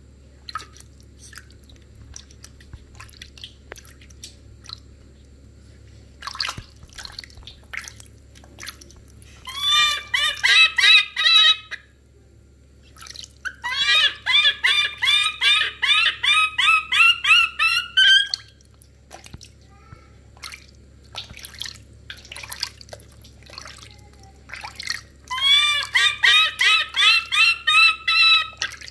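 Baby macaque crying loud in three bouts of rapid, short, shrill calls, about three a second, with water splashing and dripping between the bouts.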